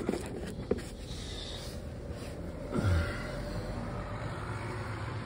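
Engine oil draining from the sump into a drain pan, a steady low trickling hiss. About halfway through a man gives a short falling grunt, the loudest sound here.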